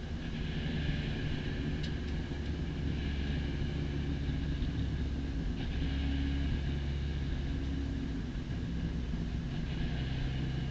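Spec Racer Ford Gen3 race car's engine running under way on track, with wind and road noise. The engine note steps to a new steady pitch a few times.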